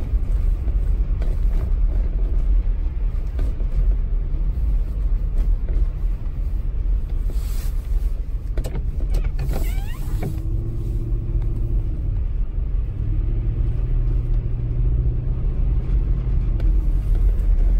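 Steady low rumble of storm wind buffeting the microphone. A low engine-like hum comes in about ten seconds in, fades, and returns for a few seconds before the end.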